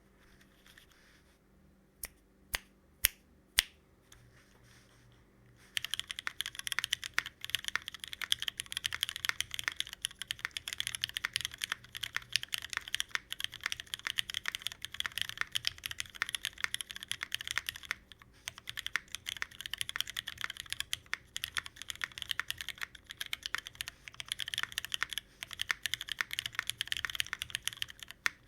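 Mechanical keyboard typing on a CherryB NEO87 with lubed, filmed Cherry Hyperglide MX Black linear switches in an aluminium plate, no foam, and JTK Night Sakura keycaps. A few single keystrokes come a couple of seconds in, then fast continuous typing runs from about six seconds in, with a brief pause past the middle.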